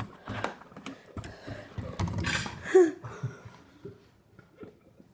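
A person breathing hard and harshly through a mouth burning from a hot chili pepper, with a short strained vocal noise a little under three seconds in, then quieter swallowing as milk is gulped from a glass. A knock at the very start as the milk jug is set down.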